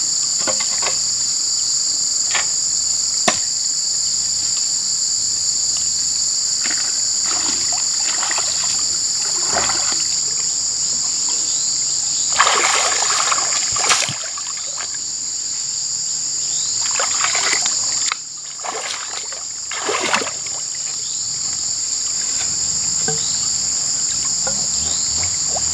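Steady, loud chorus of insects buzzing in two high shrill bands. Splashing and sloshing of shallow water as someone wades and lays a hose in it, strongest around halfway through and again a few seconds later, with a few sharp knocks.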